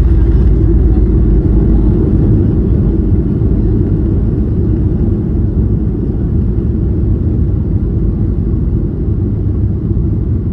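Cabin noise aboard a Boeing 737-900ER rolling out after landing: a loud, steady low rumble from its CFM56 engines and the runway that slowly fades as the jet slows.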